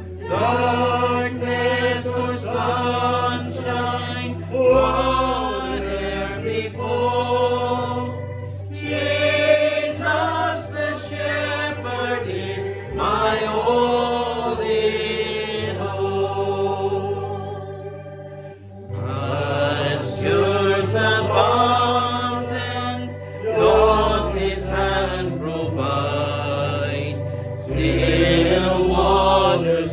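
Congregation singing a hymn together, many voices in unison over steady held bass notes of an instrumental accompaniment.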